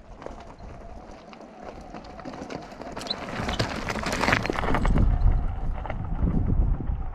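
Electric mountain bike rolling over a rough, stony mountain track, with tyres crunching and parts knocking and rattling over the stones. The noise grows louder about halfway through, and a low rumble follows near the end.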